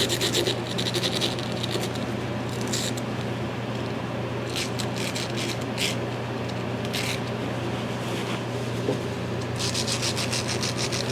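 Scotch-Brite pad scrubbing a small carburetor pilot jet, cleaning it so its stamped size can be read. A quick run of strokes at the start, a few short scrubs in the middle and a fast run of strokes near the end, over a steady low hum.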